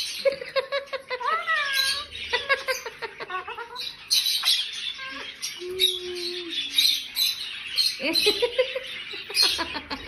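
Parrots squawking and chattering: a run of short calls, some sliding up and down in pitch, over busy high-pitched chatter.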